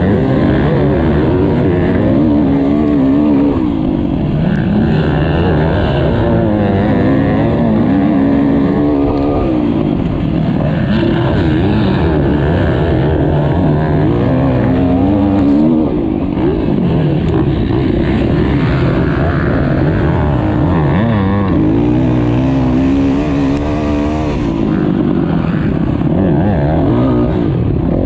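Motocross bike engine running hard, its pitch rising and falling again and again as the throttle is opened and closed through the turns and straights of a dirt track.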